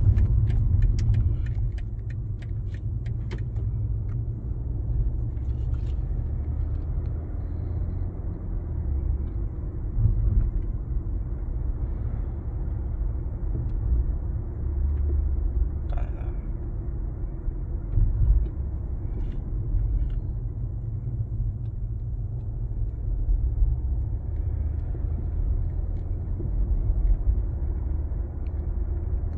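BMW G20 330d giving a low, steady rumble with a few sharp knocks, several close together in the first few seconds and more scattered through the middle: the knocking noise the car has developed.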